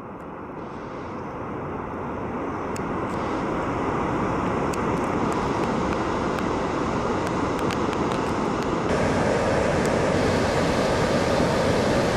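Steady rush of water pouring over a low river dam and through the rocky rapids below it, swelling over the first few seconds and then holding.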